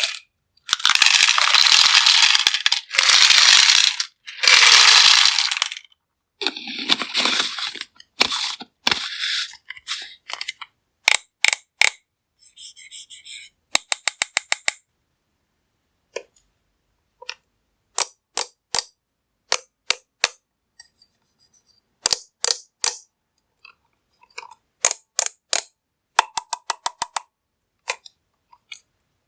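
Small hard candies pouring and clattering into a container: several dense rattling pours at the start, then scattered sharp clicks and short clatters of pieces dropping.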